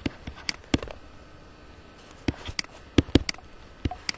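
Stylus tip tapping and clicking on a tablet-PC screen while handwriting: a scattered run of short, sharp clicks.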